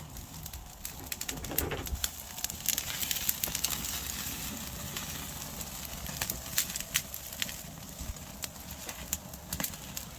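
Wood campfire crackling, with irregular sharp pops and snaps throughout, over a low rumble of wind on the microphone.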